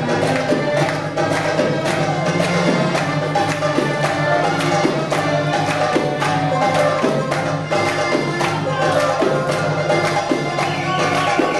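Live Middle Eastern music for belly dance: a hand drum keeps a steady beat under a sustained melody line.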